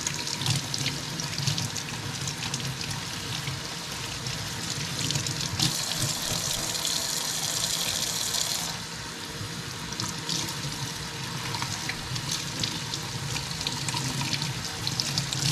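Kitchen faucet running into a stainless steel sink as artichokes are rinsed under the stream. For about three seconds midway, the stream falls straight onto the bare sink and sounds brighter and hissier.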